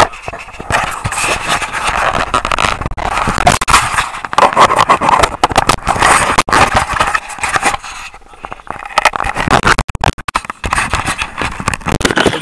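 Handling noise of a small action camera: fingers and hands rubbing, scraping and knocking directly on the camera body near its microphone, a loud, irregular scratching with many sharp clicks.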